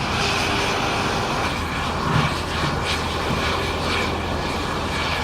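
Steady vehicle drone: a low engine hum under a constant hiss of road and wind noise.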